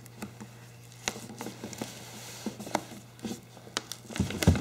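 Fingers scratching and picking at the tape sealing a cardboard box: a scatter of small scrapes and clicks, with a louder pair of thumps near the end.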